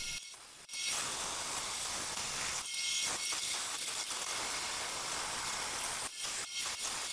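Bandsaw cutting through a wooden clamp blank, a steady hissing rasp of blade through wood that breaks off briefly twice.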